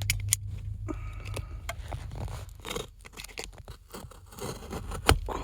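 Rustling, scraping and scattered sharp clicks as small items, an embroidered patch and its packaging, are handled.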